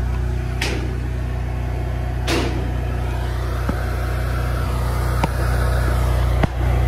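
An engine idling steadily, with about five sharp knocks spread over a few seconds.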